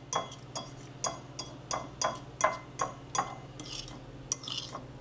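Metal fork clinking against a ceramic bowl while stirring a thick sauce, a regular clink about every third of a second, with a couple of softer scrapes near the end.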